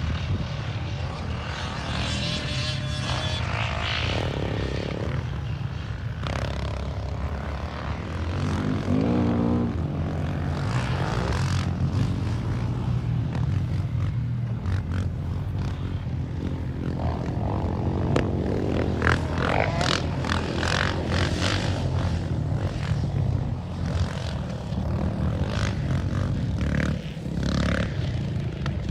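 Yamaha Raptor 700 ATV's single-cylinder four-stroke engine running under way, a steady low drone. Its pitch rises and falls briefly about a third of the way in, and rough, gusty noise runs over the second half.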